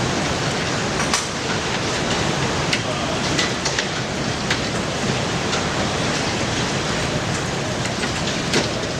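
Steady rushing noise of a windstorm, with a few faint clicks scattered through it.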